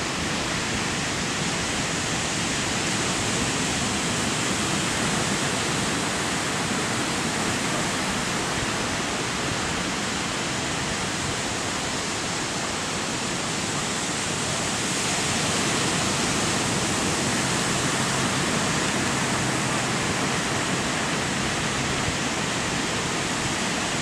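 Ocean surf breaking on a beach: a steady rushing wash of waves that swells slightly about halfway through.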